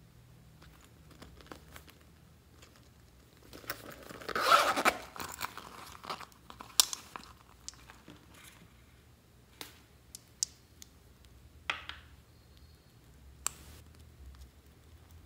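Close-up handling noises: a rasping, crinkly burst about four seconds in from a vinyl pencil case being handled. After it come scattered light clicks and taps from small corked glass glitter bottles.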